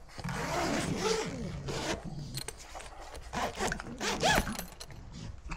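Zipper on a soft fabric dog crate's mesh door being drawn shut in a few long rasping pulls.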